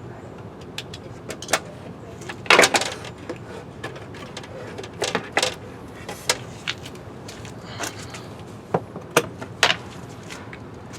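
The battery pack is worked out of an Onyx RCR electric bike's frame. It makes irregular sharp clicks and knocks, about ten in all, the loudest about two and a half seconds in.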